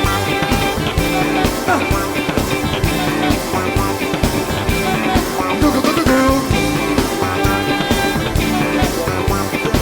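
Live funk band playing an instrumental groove, with guitar, bass and drums.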